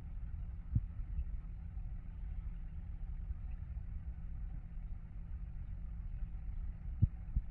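Steady low rumble with two short, dull thumps, one about a second in and a louder one near the end.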